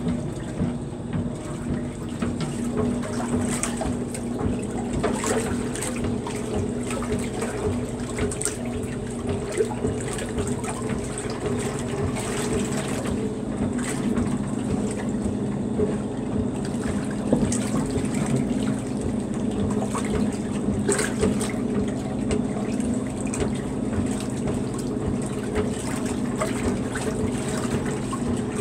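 Maytag wringer washer agitating a load of wash: a steady motor hum with water churning and sloshing in the tub.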